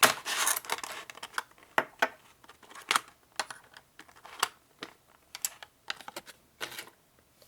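Hard plastic Beyblade parts and packaging being handled, with a rustle at the start followed by irregular sharp clicks and taps.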